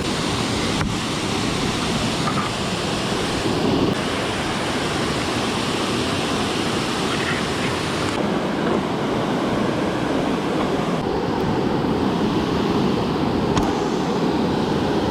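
Steady rushing of river water pouring over a low dam's falls.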